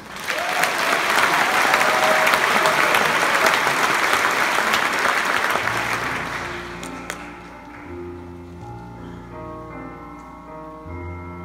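Audience applauding, dying away about six seconds in as instrumental music begins with slow, held chords.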